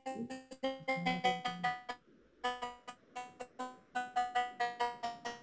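A keyboard playing a quick tune of short notes, about four or five a second, each dying away quickly, with a short break about two seconds in.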